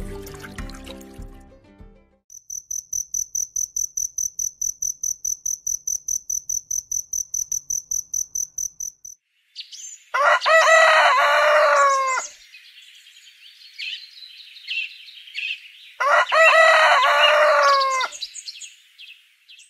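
A high-pitched trill pulsing about six times a second, then a rooster crowing twice about six seconds apart, over continuous bird chirping.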